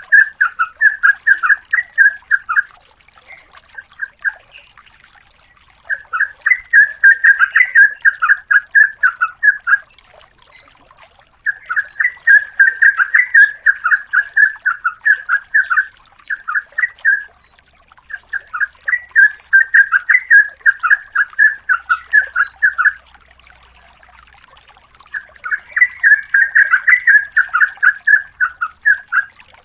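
Yellow-vented bulbul (trucukan) singing in repeated bouts of rapid, bubbling notes, each bout a few seconds long with short pauses between, five bouts in all.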